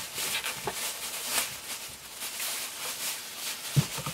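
Thin plastic bag crinkling and rustling as hands unwrap a toy figure from it, with a single thump near the end.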